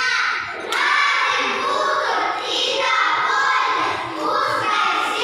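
Young children's voices performing aloud, with a brief sharp click about two-thirds of a second in.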